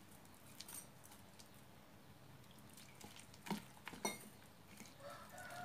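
Faint, wet sounds of gram-flour batter being mixed by hand in a glass bowl: a few soft squelches and taps against low room tone.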